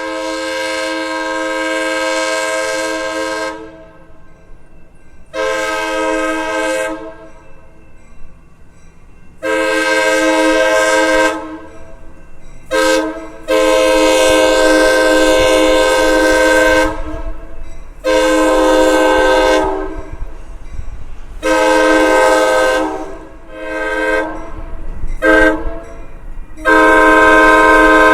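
Train air horn, a Nathan Airchime, sounding a steady multi-note chord in a series of about ten blasts. The blasts are a mix of long ones of up to three seconds and short, clipped ones, with a low rumble between them.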